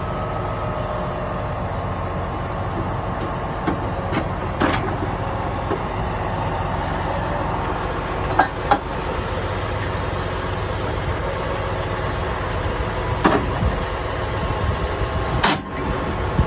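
Heavy truck diesel engine idling steadily, with sharp metallic clanks of tow chains against the steel underlift several times, the loudest near the end.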